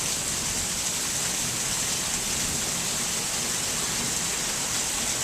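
Heavy monsoon rain pouring down steadily: a dense, even hiss.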